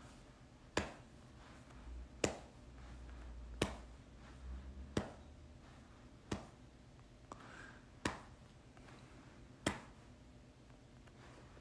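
A run of short, sharp clicks or taps, seven of them, one about every second and a half, over quiet room tone.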